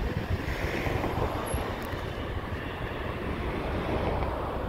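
FS D.245 diesel shunting locomotive running as it hauls a rake of Intercity coaches, a steady low rumble from the engine and the moving train.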